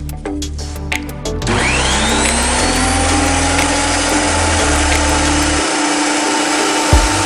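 Thickness planer's motor switching on about a second and a half in, its whine rising as the cutterhead spins up to speed, then running steadily. A few low knocks come near the end.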